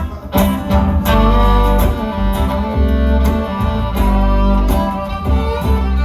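A small acoustic string band playing an instrumental passage: strummed guitar, a fiddle melody and a bass line.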